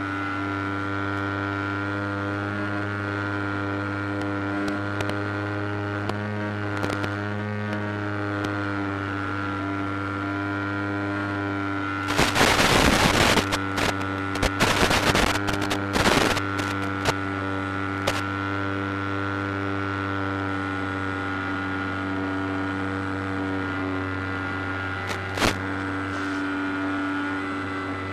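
Steady electrical hum and buzz of an FPV video link's audio channel. Between about 12 and 17 seconds in it is broken by bursts of loud crackling static, the sign of a breaking-up radio signal, with single clicks a little later.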